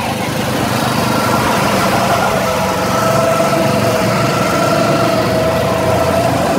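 Rental go-kart's small petrol engine running steadily under way, with the engines of other karts on the track around it; the pitch holds nearly level.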